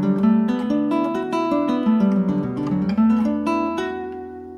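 Acoustic guitar played with the harp technique: a quick run of fingerpicked notes across the strings, each left ringing over the next so they blend like a harp. It ends on a chord left to ring and fade.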